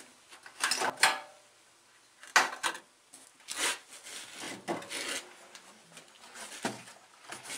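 Handling noises at a portable generator's fuel tank as its fuel cap is taken off to add gasoline: a scattered series of short knocks, clicks and scrapes.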